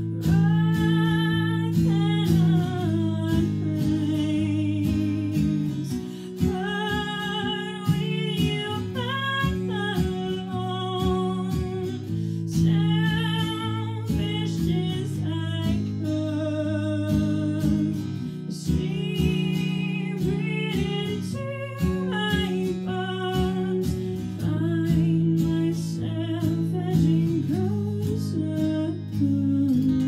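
A woman singing a melody in phrases of held and sliding notes over an acoustic guitar playing steady chords, a song in waltz time.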